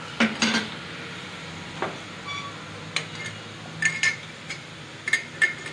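About eight sharp clinks and knocks at irregular intervals, several ringing briefly like metal or crockery being handled, over a steady low hum.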